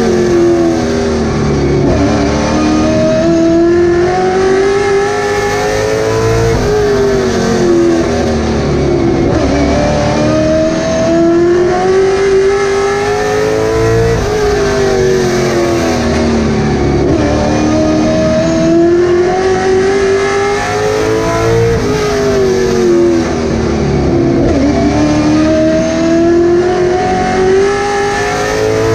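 Late Model stock car's V8 engine heard from inside the cockpit at racing speed. Its note climbs for several seconds down each straight, then drops as the driver lifts for each turn, repeating about every seven seconds.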